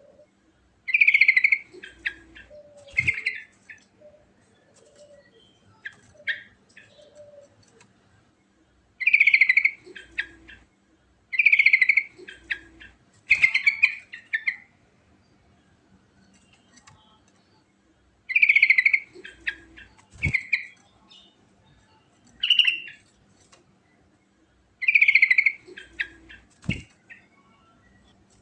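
Yellow-vented bulbul (trucukan) singing: loud, bubbly phrases of a second or two, given in clusters every few seconds with short pauses between.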